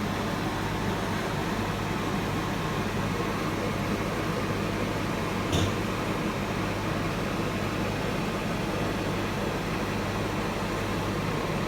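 Steady hum and hiss of a fan-like appliance running, with one short click about five and a half seconds in.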